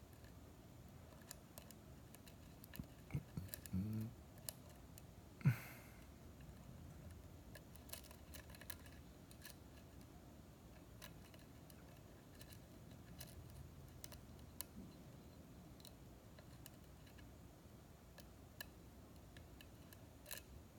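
Faint, scattered metallic clicks of a lock pick and tension wrench working the pin stacks of a Schlage-style KIK cylinder lock, with one louder knock about five and a half seconds in.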